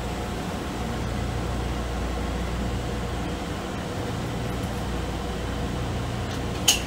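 Interior running noise of an automated airport people-mover tram gliding along its elevated guideway: a steady low hum and rumble from the cabin. A brief, sharp, high sound cuts in near the end.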